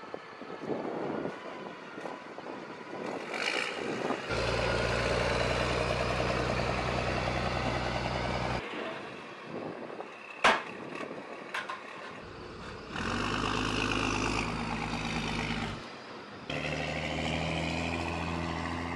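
Tracked armoured vehicle's engine running as it drives, heard in several stretches that start and stop abruptly, with one sharp click about midway.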